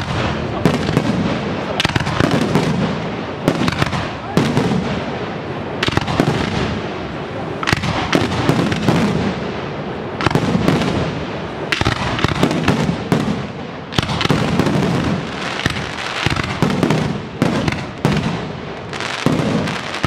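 Aerial fireworks display: shells bursting in quick succession, a steady run of loud bangs, often less than a second apart.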